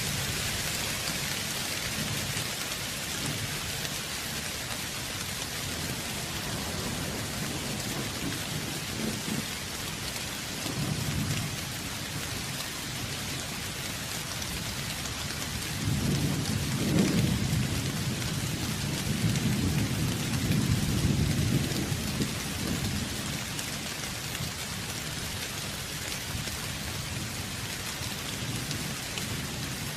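Steady rain falling, with low rolls of thunder: a short rumble about a third of the way in and a longer, louder roll in the middle.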